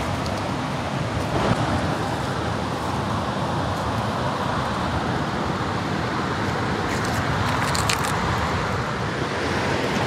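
Steady rushing of flowing river water, with a few brief clicks and scuffs about seven to eight seconds in.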